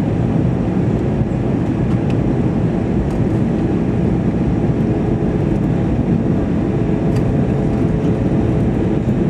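Steady cabin noise inside an Airbus A320-212 in flight: the low drone of its CFM56 engines and the rush of air over the fuselage, with a faint steady hum.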